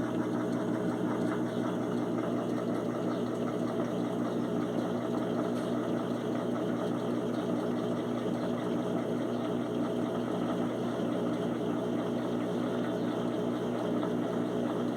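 Electrolux washing machine spinning a duvet: a steady mechanical hum and vibration that holds even throughout. The noise alarmed the owner a little, but he takes it for normal.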